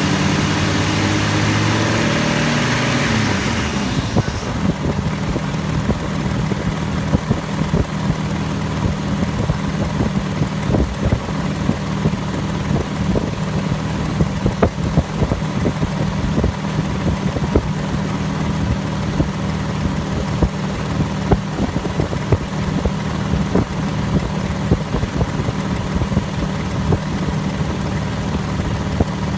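1998 Jeep Grand Cherokee's engine coming down from raised revs about three to four seconds in, then idling steadily with scattered sharp ticks.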